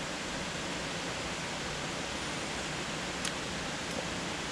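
Steady, even rushing noise of the outdoor background, with two faint clicks a little over three and about four seconds in.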